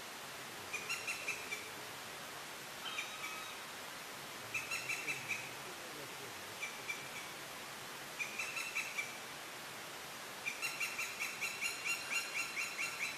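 A woodpecker calling: short rattling series of quick, sharp, high notes, repeated several times, with a longer run of about a dozen notes near the end.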